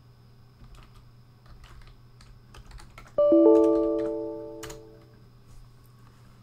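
Computer keyboard typing: light key clicks, with a sharper key press near the end. About three seconds in, a loud chord of several ringing notes, struck in two quick onsets, fades out over about two seconds.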